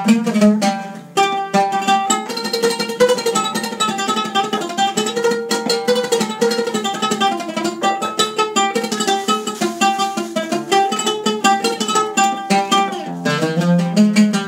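An oud played solo in a quick run of plucked notes, with a brief pause about a second in before the run resumes.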